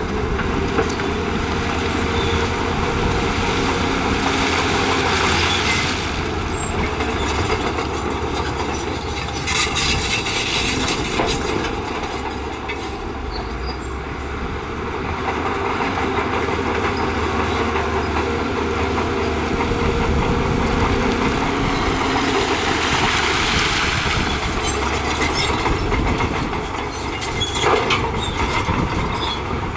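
Diesel engine of a crawler bulldozer working under load, with the clatter of its steel tracks and rock scraping; the sound swells and eases as it pushes, with sharper clanks around ten seconds in and near the end.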